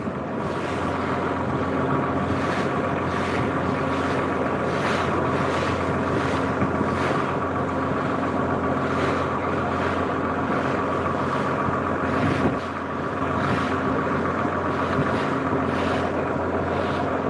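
A wooden river boat's engine running steadily under way, with water splashing along the hull. The engine note dips briefly a little past halfway.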